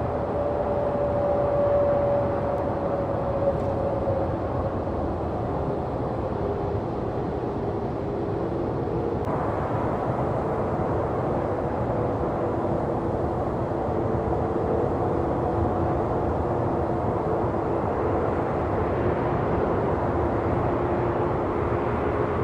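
Jet airliner engines running with a steady whine over rushing noise, from a Korean Air A321neo. About nine seconds in, the sound cuts abruptly to a Korean Air A380's four jet engines, with a lower steady whine.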